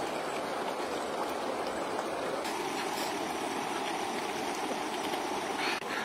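A stream flowing: a steady rush of running water.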